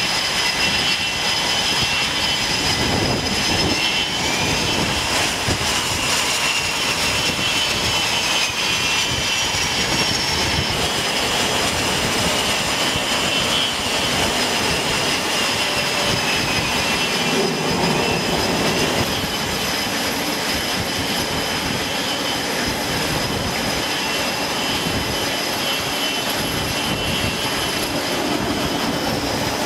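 Jet aircraft engines running steadily, a dense rushing noise with several high turbine whines that slowly rise and fall in pitch.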